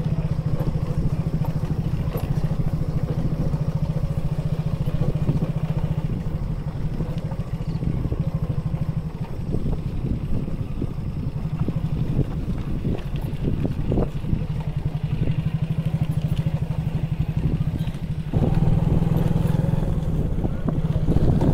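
Vehicle engine running with tyre and road noise while driving on a rough dirt track, a steady low drone with occasional knocks and rattles from bumps. The drone gets louder about three-quarters of the way through.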